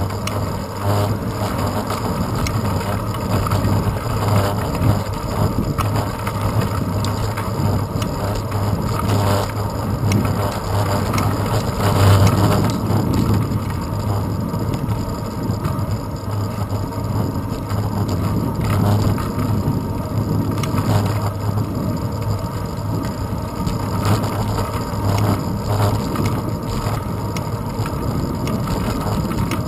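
Bicycle riding over asphalt, heard through a handlebar-mounted GoPro Hero 2 in its housing: a steady low rumble of wind and road vibration, with scattered knocks from bumps in the road.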